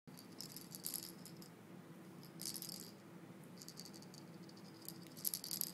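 A small red toy ball with a rattle inside, batted about by a kitten, rattling in four short bursts, the last one the loudest.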